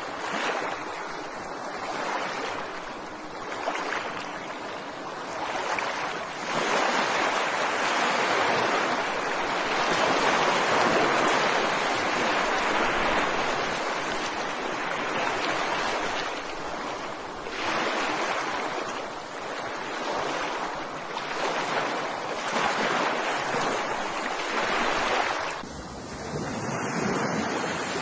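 Ocean surf: waves breaking and washing in, a continuous rushing that swells and eases in long surges.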